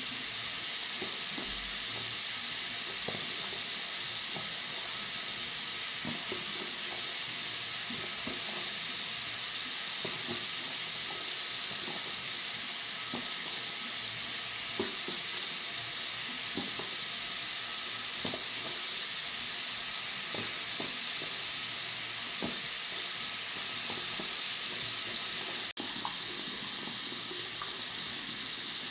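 Water running from a bathroom sink tap: a steady hiss centred in the upper mid-range, with faint small splashes. There is a momentary break in the sound near the end.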